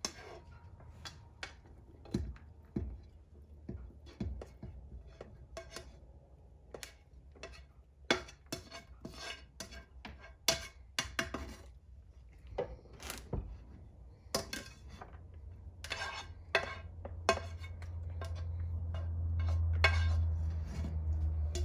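A spoon scraping and knocking against a nonstick frying pan, pushing sautéed diced vegetables out into a plastic mixing bowl: irregular clicks and scrapes, with a low hum swelling near the end.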